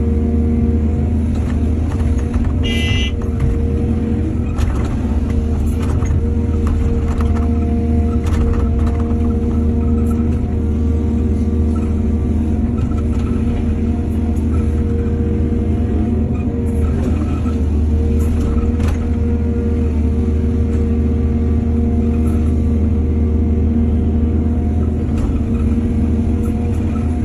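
Diesel engine of a working excavator running steadily with a deep, even rumble, with scattered light knocks over it and a brief high squeak about three seconds in.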